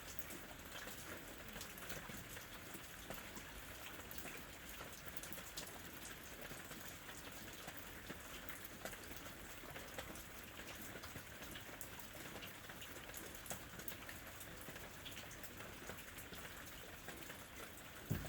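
Steady rain, many small drops pattering on a surface, with a brief low thump near the end.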